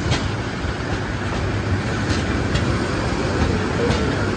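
Mohanagar Express, a Bangladesh Railway intercity passenger train, giving a steady low rumble alongside the platform, with a few sharp clicks.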